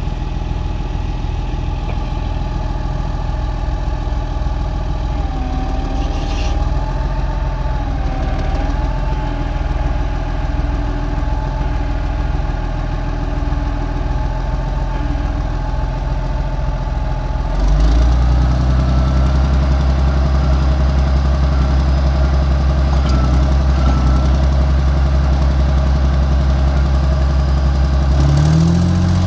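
Heavy diesel engine of earth-moving machinery running, with a thin wavering whine above it. About two-thirds of the way through it steps up to a louder, heavier run, and near the end the revs climb.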